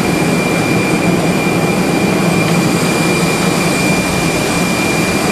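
Aircraft turbine engines running steadily beside the boarding stairs: a loud, even rush with a thin, steady high whine over it.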